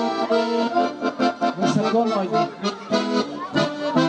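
Accordion playing a lively folk dance tune, short repeated chords on a steady beat: the introduction to the dance.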